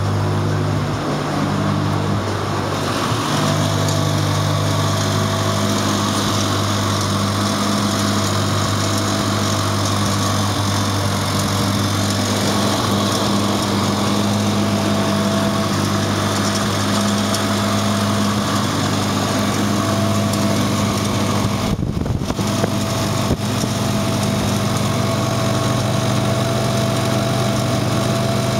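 Farmall Cub tractor's small four-cylinder gasoline engine running steadily with an even, unchanging hum, now warmed up after a cold start.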